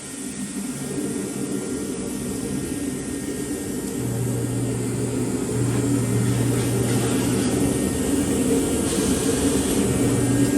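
A motor running steadily with a low hum that grows louder about four seconds in.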